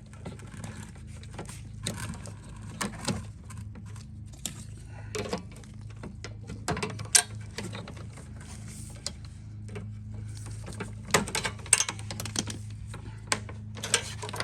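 Irregular clicks, taps and rattles of hands and tools working on a lawn mower's handle and cable fittings, over a steady low hum.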